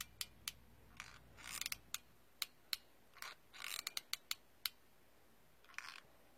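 Hot glue gun trigger clicking irregularly as glue is fed out: about a dozen sharp clicks, bunched around the middle, with a few brief softer noises between them.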